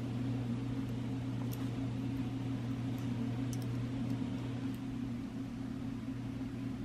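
Steady low hum with a faint even hiss, with a few faint ticks.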